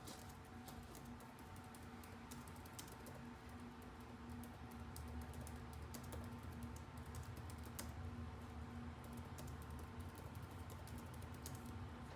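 Typing on a computer keyboard: irregular, faint key clicks over a steady low hum.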